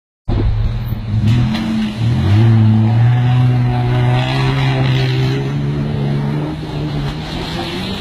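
Nissan Patrol's engine pulling the 4x4 through deep river water. The note dips briefly about two seconds in, then climbs slowly, over the rush and splash of the bow wave it pushes.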